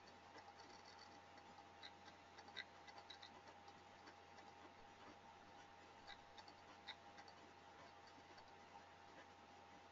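Near silence: room tone with a faint steady hum and a scattering of faint, irregular clicks.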